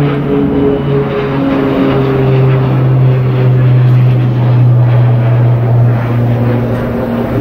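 A steady engine drone: a strong low hum with a few higher tones that shift in pitch now and then.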